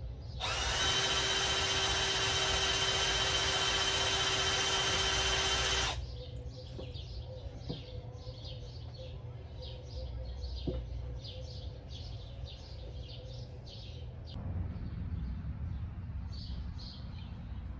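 DeWalt cordless drill running at a steady speed for about five seconds, winding up at the start and stopping abruptly, turning the Toyota FJ40 engine's oil pump by hand-held power to build oil pressure. Birds chirp repeatedly after the drill stops.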